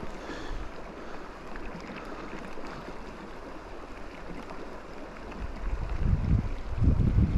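River water rushing steadily, with wind buffeting the microphone in strong low gusts from about six seconds in.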